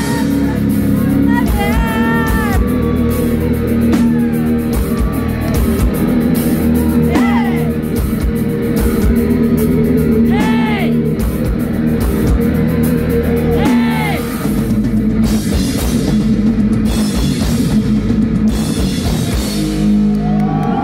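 Heavy metal band playing live: distorted electric guitars, bass and drum kit over a steady riff, with a high melody line sliding up and down in pitch every few seconds.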